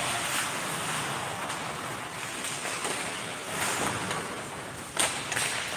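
Ice hockey play on a rink: a steady wash of skates on the ice and arena noise, with two sharp clacks of stick or puck about five seconds in.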